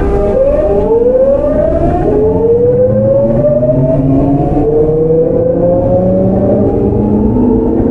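Tokyu 9000 series electric train accelerating, heard on board. Its early Hitachi GTO-VVVF inverter makes the traction motors whine in a run of rising tones, each climbing and then dropping back a step as the inverter changes pulse mode, over steady running rumble.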